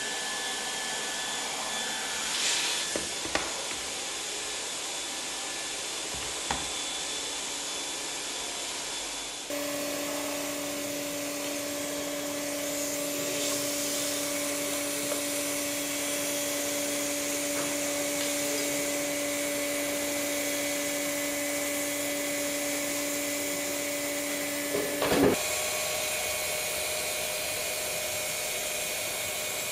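Leister Variant T1 tarpaulin hot-air welding machine running, its hot-air blower giving a steady rushing hiss. About a third of the way in a steady low hum joins. Near the end the hum wavers and shifts in pitch, with a brief clatter.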